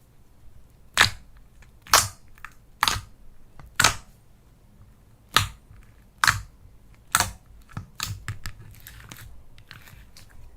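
Slime being pressed, giving a series of sharp pops about once a second, followed near the end by a quicker run of softer crackles.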